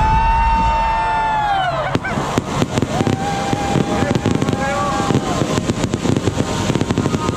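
Fireworks crackling and popping in a dense rapid run from about two seconds in, over a crowd's shouting and cheering voices.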